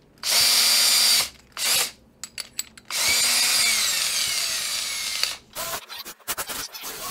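Cordless drill motor run in bursts: a short spin, a few clicks, then a longer run whose pitch slowly falls, as a bit is spun into the keyless chuck and the chuck closes on it.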